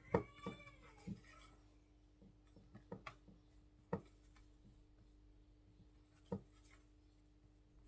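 A cat meows once, ending about half a second in. Then a spatula folding cake batter in a glass bowl gives a few scattered soft knocks against the glass.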